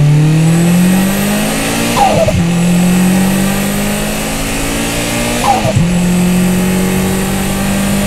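Mitsubishi Lancer Evolution 6.5 Tommi Mäkinen Edition's turbocharged 4G63 four-cylinder engine accelerating hard. Its note rises, then breaks briefly at gear changes about two seconds in and again past five seconds, each with a short falling chirp.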